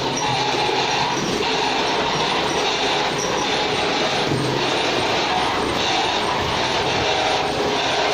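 Automatic wall plastering machine running steadily, its motor and drive making a continuous mechanical noise with gentle regular swells.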